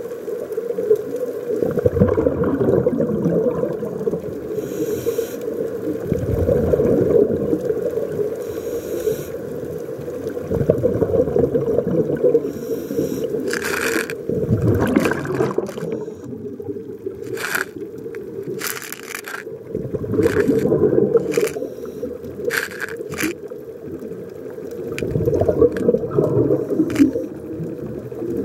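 Muffled underwater sound heard through a camera housing: a low rush of moving water that swells and fades every few seconds. In the middle stretch come about ten sharp clicks.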